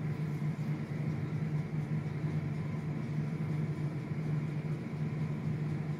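A steady low hum that holds at one pitch with no breaks, over faint background hiss.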